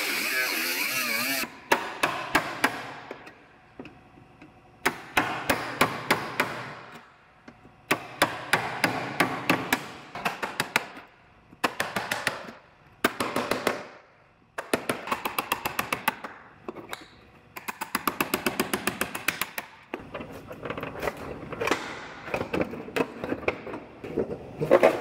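An air cut-off tool with a small wheel runs against the aluminum cab panel and stops about a second and a half in. Then a pneumatic chisel hammers at the panel seams in short bursts of rapid metal-on-metal strikes, a second or two each, with pauses between.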